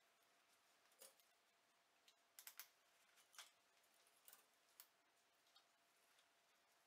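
Faint, scattered sharp clicks of steel surgical forceps (hemostats) being handled and clamped, including a quick run of three clicks midway.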